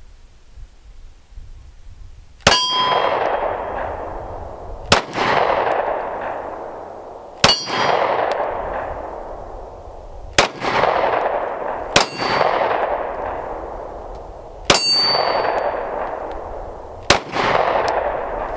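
Seven 9mm pistol shots from a PSA Dagger Compact firing Federal Punch 124-grain hollow points, spaced a couple of seconds apart. Each shot is followed by a ringing clang from a steel target being hit.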